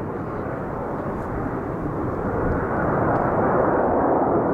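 Aermacchi MB-339 jet's turbojet engine, a steady rushing roar as the jet flies overhead in a climb, growing louder in the second half.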